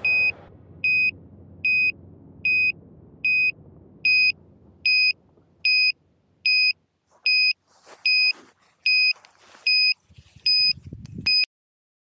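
A downed FPV racing drone's lost-model beeper beeping steadily: short, high, even beeps a little more than once a second, signalling where the crashed quad lies. Faint rustling comes in the second half, and everything cuts off near the end.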